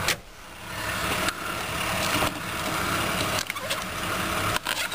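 Plastic clicks and knocks of a car's interior trim being handled. The glove box latch clicks open at the start, and scattered clicks follow as hands move over the dash and the sun visor's vanity mirror cover, over a steady low hum.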